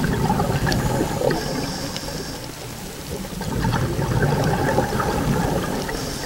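Scuba diver's exhaust bubbles rushing and gurgling underwater, swelling twice about three seconds apart with each exhaled breath, with scattered faint clicks.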